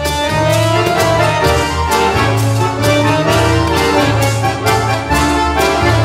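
Accordion orchestra playing a Latin dance tune: several accordions hold chords and melody over sustained bass notes and a steady, even beat.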